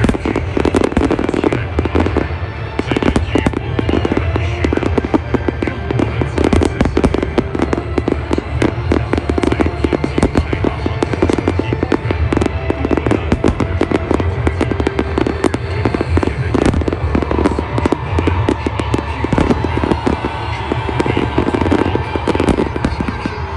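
A dense barrage of aerial firework shells bursting in rapid succession, bangs and crackling packed closely together, with music playing under it.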